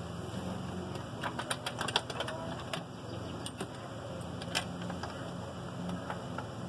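Irregular light clicks and taps from hands working a swapped-in LS V8's intake manifold and its hardware into place: a quick cluster about a second in and one more sharp click near the middle, over a steady low hum.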